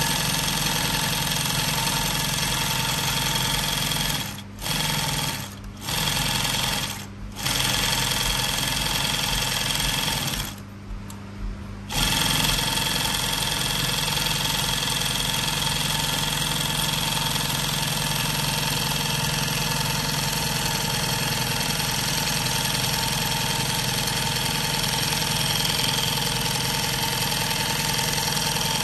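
SMITCH SM20U43 zigzag/straight-stitch industrial sewing machine stitching at speed. It stops briefly three times in the first eight seconds, then for about a second and a half around ten seconds in, then runs steadily. A low motor hum carries on through the pauses.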